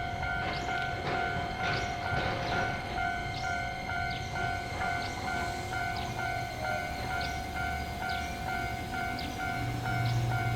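Railway level-crossing warning alarm ringing, a repeating electronic tone pulsing about twice a second over a steady tone, while a train runs by with a low rumble that grows louder near the end.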